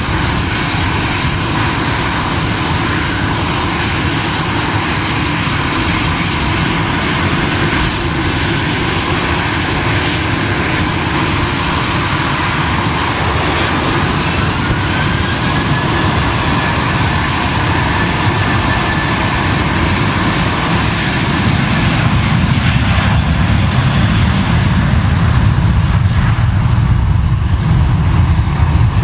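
Jet airliner engines running close by at idle, with a faint whine rising in pitch about halfway through. Near the end the noise grows louder and deeper as an Airbus A320's engines power up for its take-off roll.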